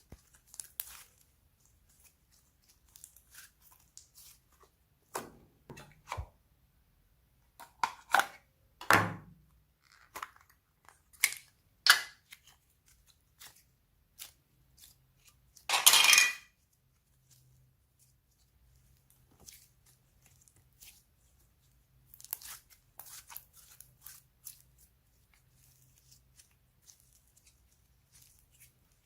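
Slime being squished and stretched by hand, giving scattered crackles and sharp clicking pops, with one longer, louder crunchy crackle a little past halfway.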